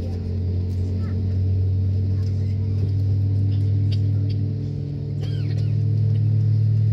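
Steady low hum of an Airbus A320's cabin on the ground, a deep drone with several steady tones above it that grows a little louder near the end.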